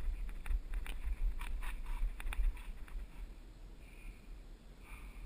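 Mountain bike rolling down a dirt singletrack, heard from a camera riding along: a steady low rumble with scattered clicks and rattles from the bike over bumps, thinning out in the second half.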